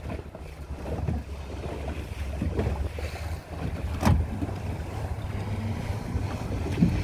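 Small fishing boat's outboard motor running steadily under way, with wind on the microphone. A single sharp knock about four seconds in.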